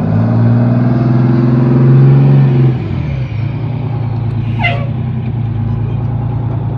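Diesel engine of a fire tanker truck running close by: loudest for the first three seconds, then the note drops and it runs on more quietly. There is a brief high squeal about halfway through.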